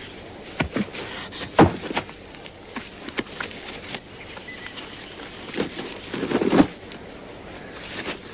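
A leather bag being handled and rummaged through: scattered knocks, clicks and rustles, with louder thuds about a second and a half in and again about six and a half seconds in.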